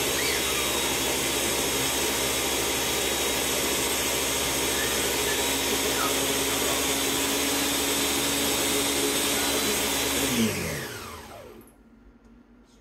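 Countertop blender running steadily, blending soaked walnuts and hemp seeds. About ten and a half seconds in, the motor is switched off and winds down with a falling whine to quiet.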